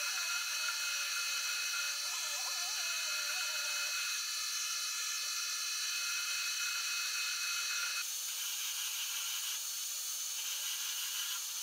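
Metal lathe running while a long twist drill bores into the spinning metal workpiece: a steady high machine whine and hiss, with wavering tones from the cutting in the first few seconds. The sound shifts abruptly about eight seconds in.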